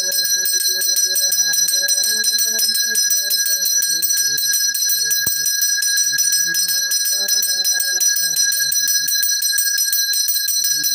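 Small brass hand bell rung rapidly and continuously in temple worship (aarti), its high ringing steady throughout. A man's voice chants beneath it, pausing briefly twice.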